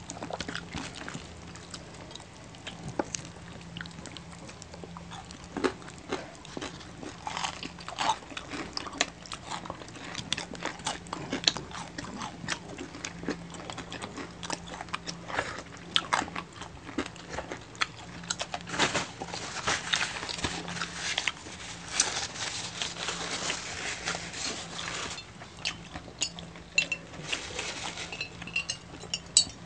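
Close-miked eating sounds from two people eating crispy pata (deep-fried pork knuckle): crunching of the crisp skin, chewing and wet mouth smacks, in a rapid run of small crackles that gets denser about two-thirds of the way through.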